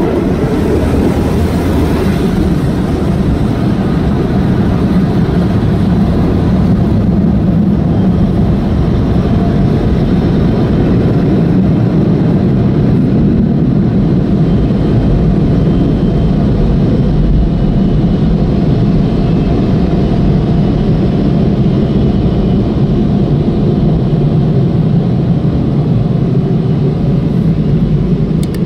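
Automatic tunnel car wash heard from inside the car: water spraying over the windshield at first, then cloth brushes washing over the car, a loud steady noise with most of its weight low down.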